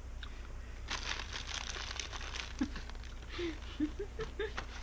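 Popping candy inside Fizzing Whizbees crackling and fizzing in the mouth: a dense run of fine, irregular high crackles that starts about a second in and dies away near the end.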